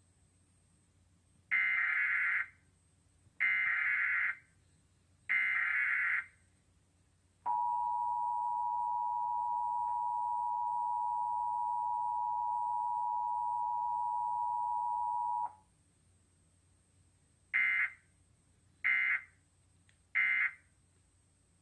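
Emergency Alert System test signal: three SAME data header bursts of about a second each, then the two-tone EAS attention signal held steady for about eight seconds, then three short end-of-message data bursts.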